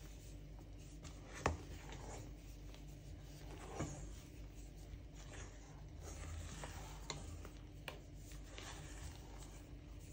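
Spatula folding flour into a whipped-egg sponge batter in a stainless steel bowl: faint scraping and rubbing, with a few light clicks of the spatula against the bowl.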